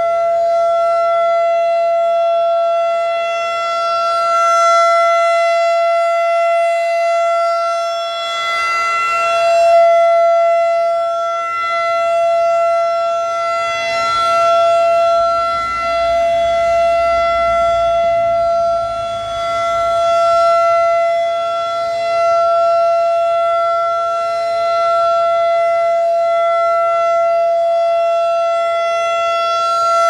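Federal Signal 2001 DC rotating outdoor warning siren sounding a steady single-pitch tone. Its loudness swells and fades every five seconds or so as the turning horn sweeps past.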